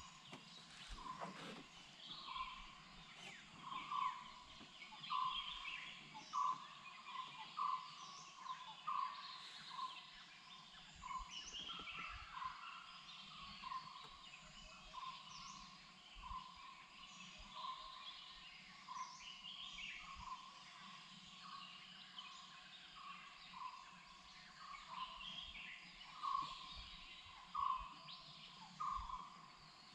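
Faint forest bird chorus: one bird repeating a short, low note about once a second, over a scatter of higher chirps and calls from other birds.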